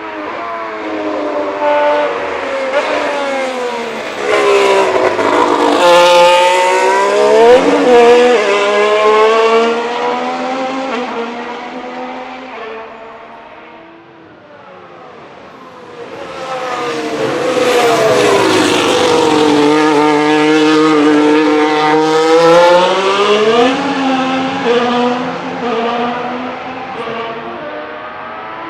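Formula 1 car's Red Bull Ford turbocharged V6 hybrid power unit running at speed on track. Its engine note swells, rises and falls in pitch and drops as the car goes by about seven seconds in. It fades away about halfway through, then comes back loud for a second pass.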